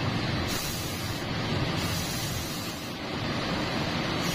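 Belt-driven open reciprocating refrigeration compressor and its electric drive motor running, a steady mechanical hum and rush with no pauses.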